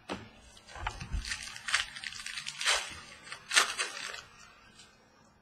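Trading cards and their packaging handled on a tabletop: a run of short rustles and scrapes, with a couple of soft taps on the table about a second in, fading out after about four seconds.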